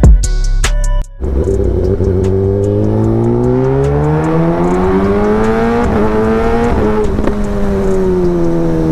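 Kawasaki ZX-10R inline-four through an SC Project aftermarket exhaust, heard on board while riding: the engine note climbs steadily as the bike accelerates, then slowly falls as the throttle closes. Music cuts off about a second in, just before the engine comes in.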